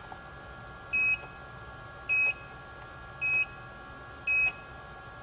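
Four short, identical electronic beeps about a second apart: the coordinate measuring machine signalling each touch-probe hit as it takes points on the last alignment circle.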